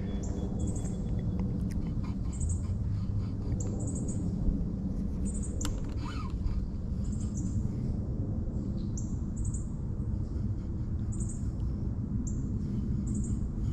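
A bird giving a short, high chirp over and over, about every one to two seconds, over a steady low outdoor rumble. A single sharp click sounds about halfway through.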